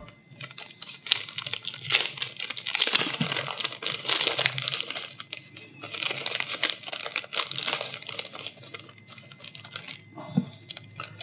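Clear plastic bag crinkling as hands open it and pull out its contents. A dense crackle starts about a second in and dies away near the end.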